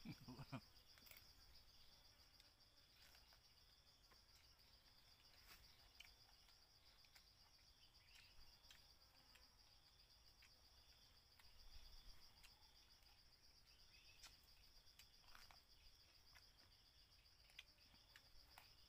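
Faint, steady high-pitched drone of insects, with a few faint clicks scattered through it.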